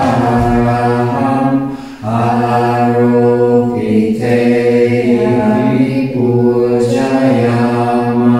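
Buddhist chanting: low, steady intoned phrases held at a constant pitch, breaking off briefly about two seconds in before the next phrase.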